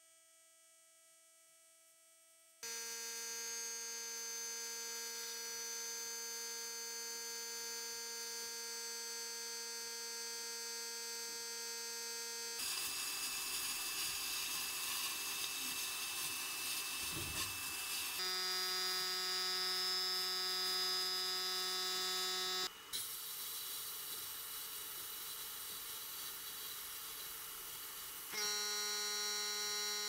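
Sandblasting in a blast cabinet: the steady hiss of the blast gun over a steady humming drone. The hum's pitch changes abruptly several times. Near silence for about the first two and a half seconds.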